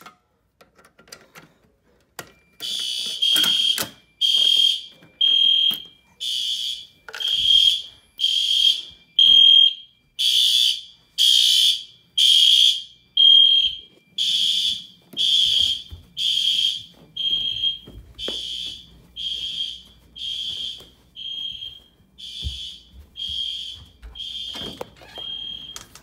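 Fire alarm system going off after a pull station is pulled: electronic fire alarm horns sound in even, buzzy pulses about once a second. They start about two seconds in and grow fainter in the second half.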